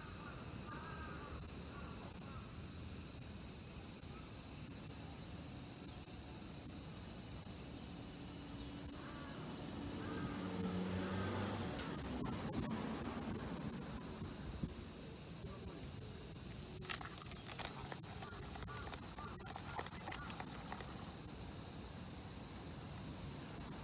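Steady, high-pitched shrilling of an insect chorus, easing slightly about halfway through, with faint voices in the background about ten seconds in.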